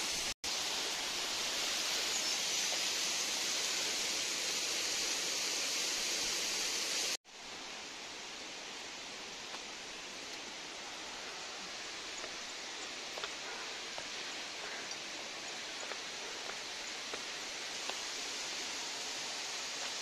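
Steady rush of flowing water. It breaks off abruptly twice, about half a second in and again about seven seconds in, and is quieter after the second break.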